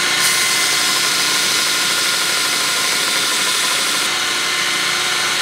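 Belt grinder running with the end of a coil-spring steel punch pressed against the belt, grinding its tip flat: a steady whine with a grinding hiss. The high hiss thins out about four seconds in.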